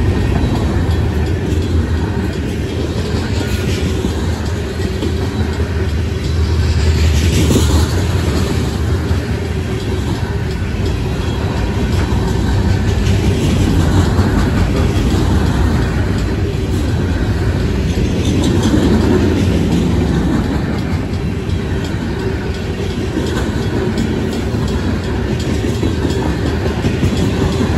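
Freight cars of a Union Pacific mixed freight train rolling past close by: a loud, steady noise of steel wheels on the rails that rises and falls slightly as the cars go by.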